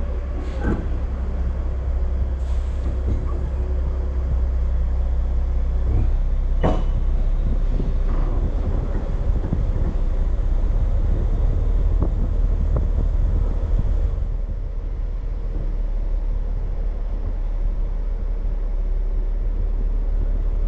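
Logging truck with a pup trailer rolling slowly over a rough dirt road: a steady low diesel engine rumble with knocks and rattles from the truck and trailer over the bumps, the loudest clank about seven seconds in.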